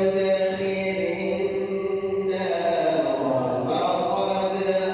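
A solo man's voice reciting the Quran in the melodic tajweed style, drawing out long held notes with slow bends in pitch; a new phrase begins about halfway through.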